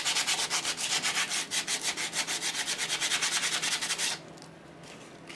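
Rapid scraping strokes, several a second, as a hand tool digs packed debris out of the bottom recesses of an AC 2-litre engine's aluminium alloy block. The strokes stop about four seconds in, leaving a few faint scrapes.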